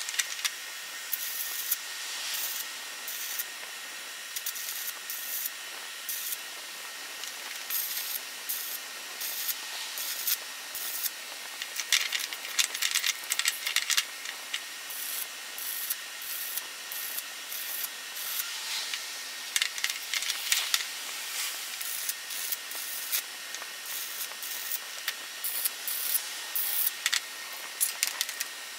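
Irregular metallic clicks, taps and scrapes of a welded steel workpiece and an arc-welding electrode holder being handled at a vise, over a steady hiss.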